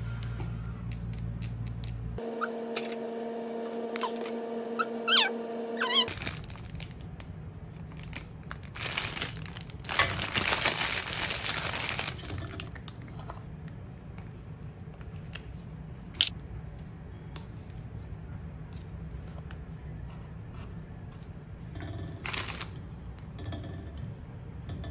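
Hands handling small sealant tubes and packaging at a stone countertop: scattered clicks and taps, with a long crinkling of a clear plastic bag for about three seconds around the middle. A steady low hum runs underneath.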